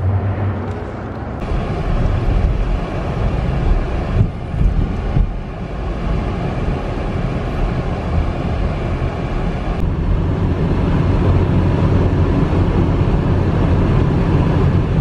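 Steady rumble and road noise of a car driving, in several short clips joined by abrupt cuts.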